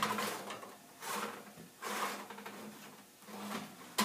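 A metal baking sheet set onto an oven rack with a loud clank, then three scraping, rattling slides as the tray and rack are pushed into the oven, and a sharp clack just before the end.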